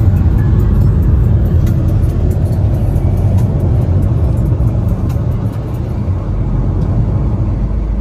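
Steady low rumble of tyre and road noise heard inside a car's cabin while driving at speed.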